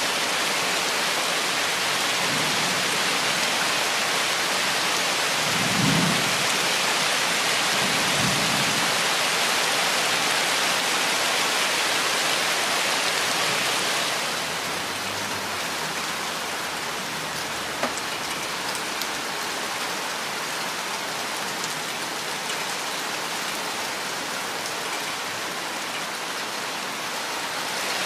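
Steady rain, an even hiss of many drops, with a few low rumbles of thunder about six to nine seconds in. The rain eases slightly about halfway through.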